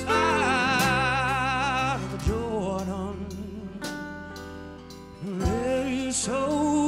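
Male rock singer's voice holding a long note with wide vibrato, then softer short phrases that fade away, and a new phrase rising to another held note about five seconds in, over quiet, steady instrumental backing.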